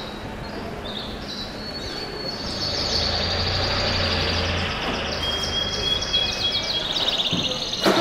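Caged canaries singing in long, fast trills and chirps over steady city street noise, with a low hum in the middle.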